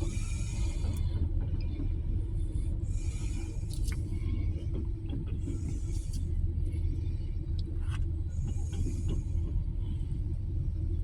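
Distant fireworks: a few sharp pops and short bursts of crackle about every three seconds, over a steady low rumble.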